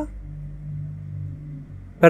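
Low steady background hum with a faint rumble.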